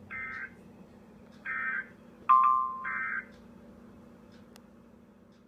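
EAS end-of-message data code: three short buzzy digital bursts about a second and a half apart, signalling that the alert broadcast is over. A brief, louder beep at a lower pitch comes just before the third burst, over a faint steady hum from the radio.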